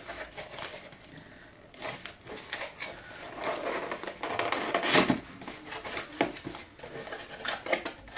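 A small cardboard box handled and opened by hand: irregular scraping, rubbing and light knocks of cardboard, the loudest about five seconds in.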